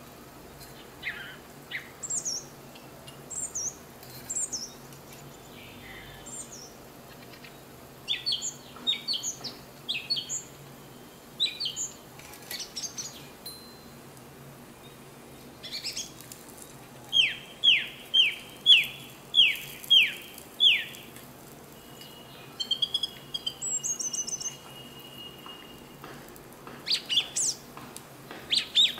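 Songbirds chirping and calling on and off, with a loud run of about seven quick falling whistled notes, roughly two a second, about two-thirds of the way through.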